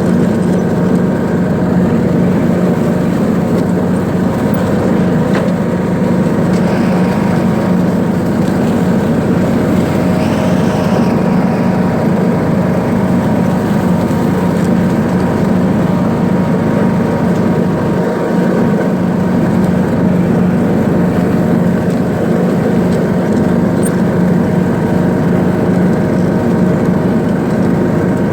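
John Deere D105 riding lawn mower's single-cylinder engine running steadily at a constant speed, with an even, unchanging hum.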